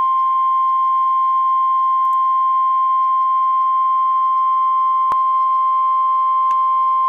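NOAA Weather Radio warning alarm tone: a single steady 1050 Hz beep, held unbroken, signalling that a warning-level alert (here a tornado warning) is about to be broadcast. A few faint clicks of radio static sound over it.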